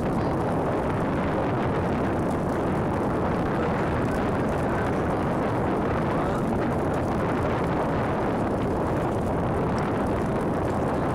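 Anak Krakatau volcano erupting: a steady, even rumbling noise with no separate blasts standing out.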